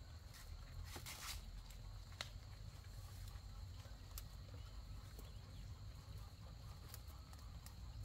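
Faint outdoor rustling: a few scattered soft crackles and snaps over a steady low rumble, with a thin steady high tone throughout.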